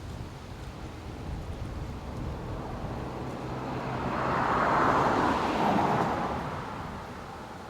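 Farm tractor passing close by: engine and tyre noise grows to a peak about five seconds in, then fades away.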